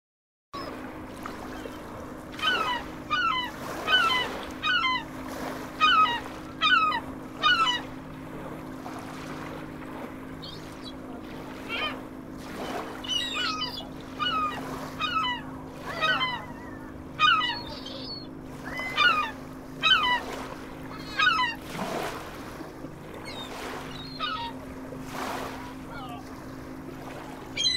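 Birds giving a long series of short calls, about one or two a second in clusters, over a steady low hum.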